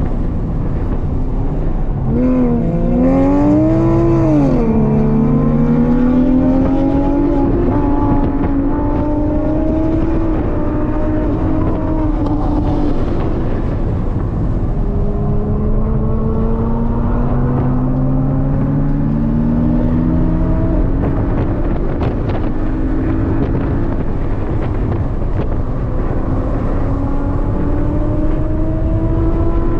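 Porsche 718 Cayman's turbocharged 2.0-litre flat-four engine heard from inside the cabin under hard track driving: the engine note climbs steadily in pitch, then drops, several times as the car accelerates and shifts gears, over steady road and wind noise.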